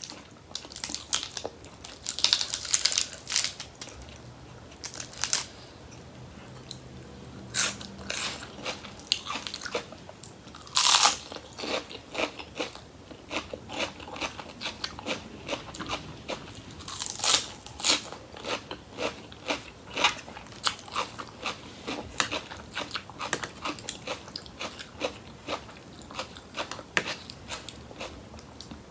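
A person chewing crisp raw vegetables with the spicy rice-noodle salad, a run of irregular sharp crunches with louder bursts a couple of seconds in, about eleven seconds in and around seventeen seconds in.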